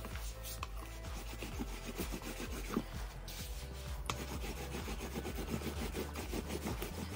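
Plastic rolling pin rolled back and forth over dough on a silicone baking mat: a repeated rubbing in short strokes.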